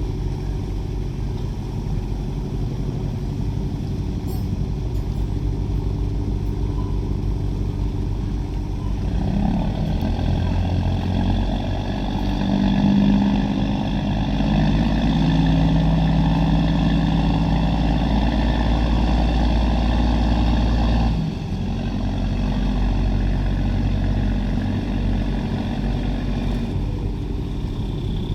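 Fishing boat engine running steadily. About a third of the way in it gets louder, with a higher whine added, and about three-quarters through it drops back suddenly to a lower level.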